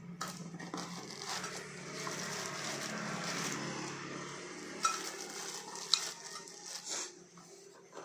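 Packaging being handled while a soldering iron kit is unpacked: rustling through the first half, then a few sharp clicks and clinks near the end.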